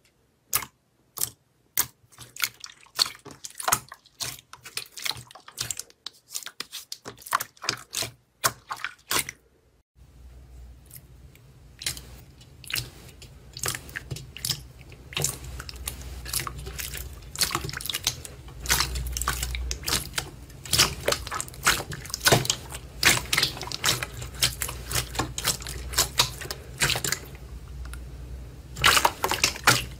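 Hands squishing and pressing glossy slime, making sharp sticky clicks and pops. About ten seconds in it changes to hands kneading red jelly slime in a metal bowl, with denser wet squelches and pops over a steady low hum.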